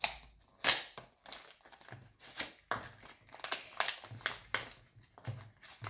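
Clear plastic toy packaging crinkling and crackling in irregular bursts as it is handled and opened by hand.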